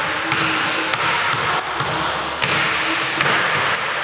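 A basketball bouncing on a hardwood court floor a few times, with short, high sneaker squeaks about halfway through and near the end.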